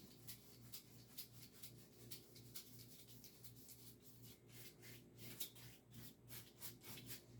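Paintbrush strokes back and forth across a canvas, blending wet acrylic paint: faint, scratchy swishes about two a second, coming quicker and a little louder over the last few seconds.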